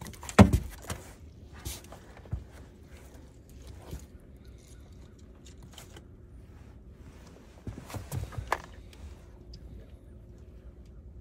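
Knocks and thumps on a boat deck as a large landed fish is unhooked and handled: a loud cluster about half a second in, a few single knocks after it, and another cluster of thumps around eight seconds in.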